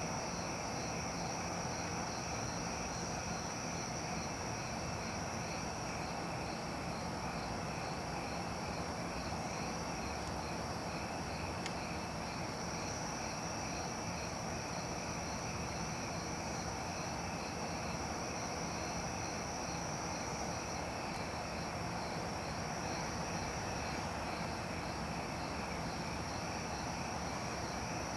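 Late-summer insect chorus: crickets trilling and pulsing steadily, over a constant low hum of distant traffic.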